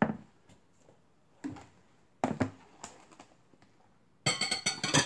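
A wooden spoon knocking and clinking against a glass mixing bowl while stirring a thin seasoning sauce, a few separate knocks, then a short burst of clattering near the end.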